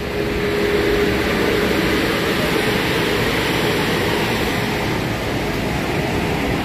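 Steady noise of vehicles on a jammed road: idling truck engines and slow traffic, an even hum with no breaks.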